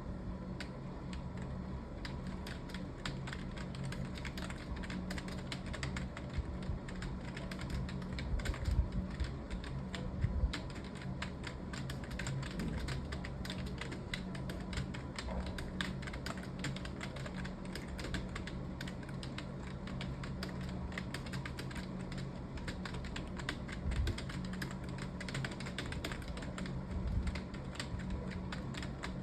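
Fast, continuous typing on a computer keyboard, many keystrokes a second, with a few heavier thumps among them and a steady low hum underneath.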